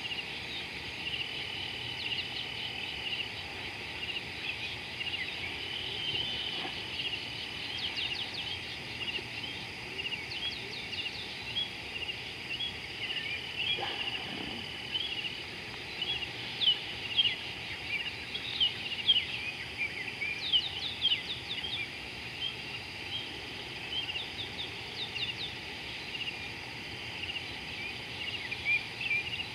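Wild birds chirping and calling in many short, quick notes, busiest and loudest in the middle, over a steady high trill.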